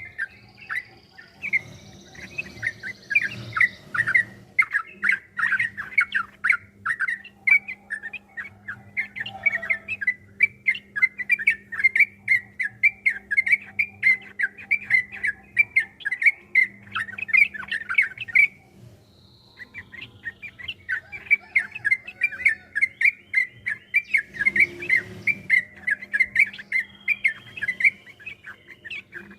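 Yellow-vented bulbul (trucukan) singing a long, fast run of chattering, bubbling notes, with a short break about two-thirds of the way through. A faint steady low hum runs underneath.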